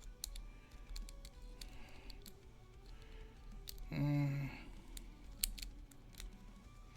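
Light metallic clicks and ticks of a lock pick and tension wrench working the pins of a pin-tumbler lock, scattered irregularly. About four seconds in, a short low hum from a person's voice is the loudest sound.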